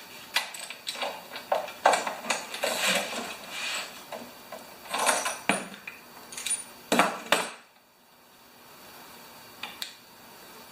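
Metal tools and small parts clinking and clattering as they are handled, in a string of irregular knocks that stops about three quarters of the way through, with one faint click near the end.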